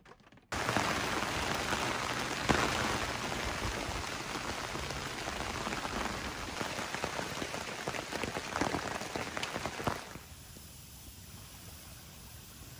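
Heavy rain falling on a truck's roll-out fabric awning and the surrounding leaves: a dense, steady hiss with occasional louder drops. About ten seconds in it cuts off to a much quieter steady hiss.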